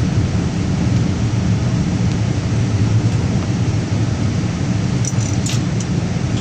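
Boeing 787 Dreamliner cabin noise after touchdown: a loud, steady low rumble of the engines and the airframe rolling on the runway. A few faint clicks come about five seconds in.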